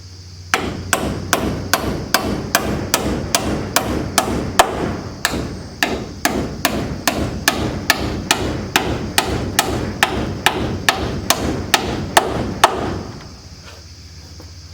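A hammer striking nails into lumber with quick, steady blows, about three a second, for some twelve seconds, then stopping.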